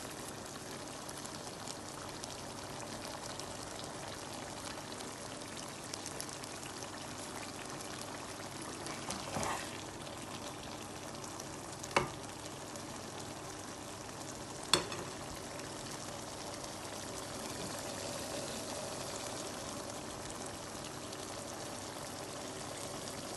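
Tori (gourd) curry in onion-tomato masala sizzling steadily as it fries in its oil in a pan, the dish cooked through. A spatula knocks against the pan about halfway through and again about three seconds later.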